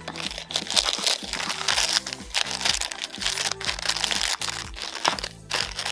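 Plastic blind-bag packet crinkling and crackling as it is handled and cut open with scissors, over background music with a steady beat.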